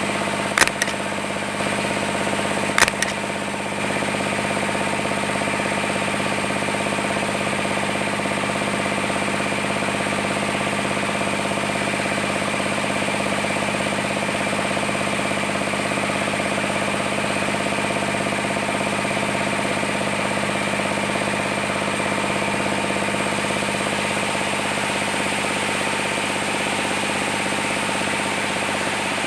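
Sawmill machinery running steadily, a constant hum made of many steady tones, with two sharp knocks in the first three seconds.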